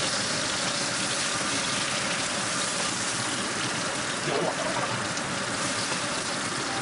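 Large steak searing in a hot oiled frying pan, giving a steady, dense sizzle.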